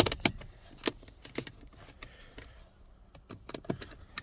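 Irregular sharp clicks and knocks of a hand tool on a screw behind a steering wheel: a cluster right at the start and a few more about three and a half seconds in.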